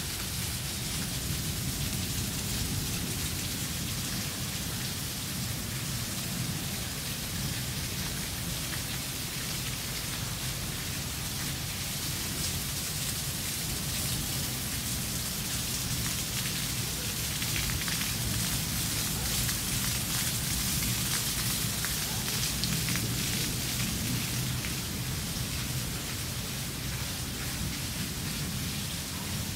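Heavy rain falling steadily, a dense hiss of drops on roofs, leaves and the street, with a steady low rumble underneath. It grows a little heavier about halfway through, then eases slightly.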